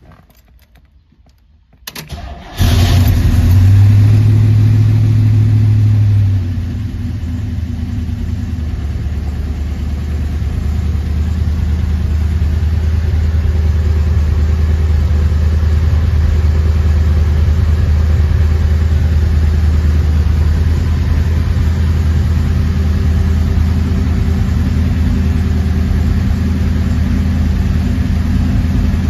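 1969 Chevrolet Camaro's 396 cubic-inch V8 cold start: a short crank about two seconds in, the engine catches and runs at a raised speed for about four seconds, then drops to a steady, even idle.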